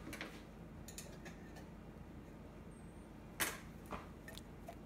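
Quiet room with a few faint, short clicks and one sharper click about three and a half seconds in.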